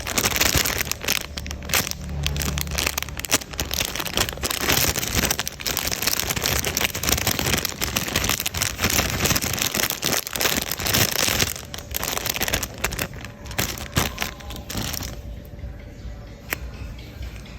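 Plastic packaging crinkling and crackling as a squishy is unwrapped by hand, continuous and dense, thinning to a few faint clicks near the end.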